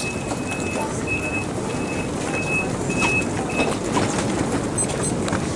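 A high electronic beep repeating about one and a half times a second, the door signal of a passenger train standing with its doors open, stopping near the end. Under it, the steady bustle of a crowd walking and wheeling suitcases along the platform.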